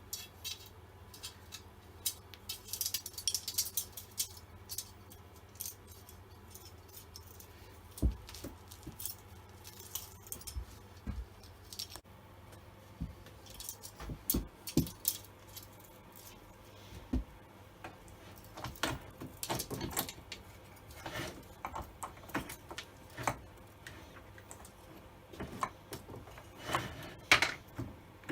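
Metal chainsaw parts being handled on a workbench, likely the bar and chain being fitted: irregular metallic clinks, rattles and knocks in scattered clusters, the loudest near the end. The saw is not running.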